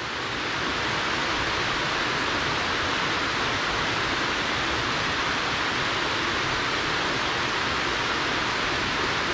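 Water pouring down the face of a concrete dam spillway: a steady rushing hiss that swells a little in the first second, then holds even.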